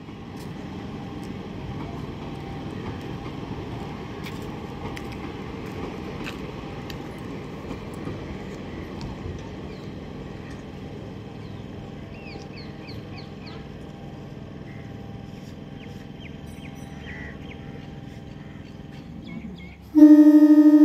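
Train running on the track, a steady low rumble that slowly fades, with a few bird chirps about twelve seconds in.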